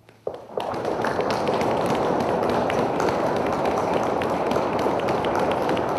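Audience applauding, starting about half a second in and then running steadily.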